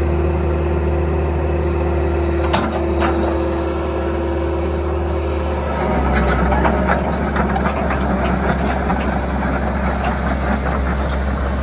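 Diesel engine of a 2004 Kobelco SK135SRLC-1E tracked excavator running with a steady low hum and a level whine that stops about halfway through. A couple of sharp knocks come early, and rattling and clatter come in the second half.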